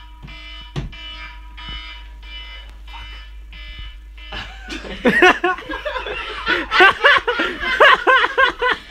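Phone alarm beeping, about two beeps a second, stopping about four seconds in. Then a loud, broken human voice.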